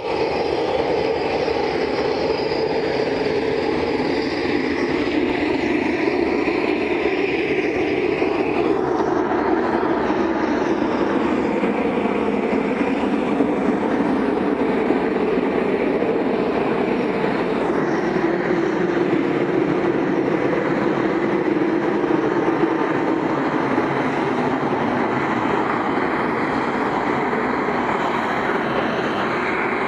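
A business jet's rear-mounted jet engines running loud and steady as the jet taxis and turns: a broad rumbling rush with a high whine on top. The whine drops away about eight or nine seconds in.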